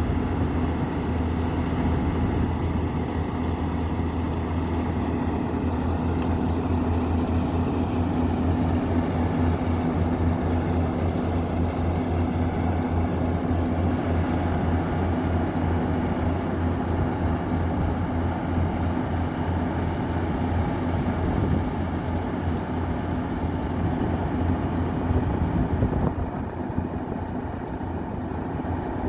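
Combine harvester running steadily under load while cutting wheat: a continuous engine drone with a fast low pulsing, which eases slightly near the end.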